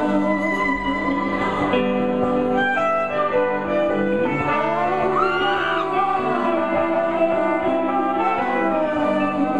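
Live folk band music: electric guitar and banjo playing sustained, ringing chords. A wavering note slides up and back down around the middle.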